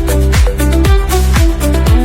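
Background electronic dance music with a steady four-on-the-floor beat, about two and a half beats a second.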